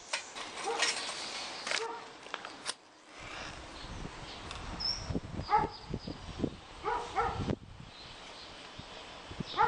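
Knocks and clinks of hands setting firelighters and charcoal into a small metal charcoal stove in the first few seconds, then a dog barking a few times in the background from about five seconds in.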